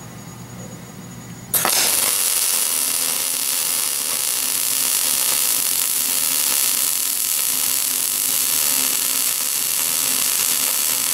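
Wire-feed welder's arc striking about a second and a half in with a sudden crack, then running as a loud, steady crackling hiss while a bead is laid on steel. A low hum is heard before the arc strikes.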